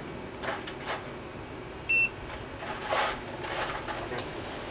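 A single short, high electronic beep about two seconds in, among faint clicks and handling noises from work on the bench.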